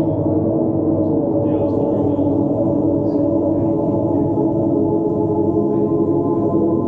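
Ambient drone music from a live experimental set: a dense, steady wash of many held low and middle tones with no beat.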